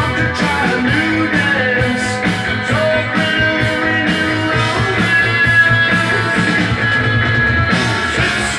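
A rock record playing on a Sansui FR-3060 belt-drive turntable with a Pickering XV15 cartridge, a band with a steady drum beat.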